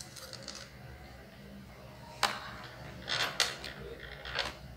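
Scattered clicks and knocks of a Lenovo IdeaPad laptop's plastic case being handled: one sharp click about two seconds in, a quick run of clicks about a second later and one more near the end.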